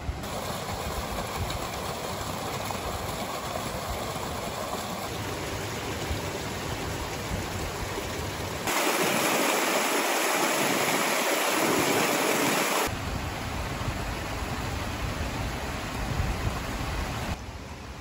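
Spring water rushing through a trout farm's pools and channels: a steady hiss of flowing water. For about four seconds in the middle it is louder and brighter, where water gushes from a stone channel and a pipe into a foaming pool.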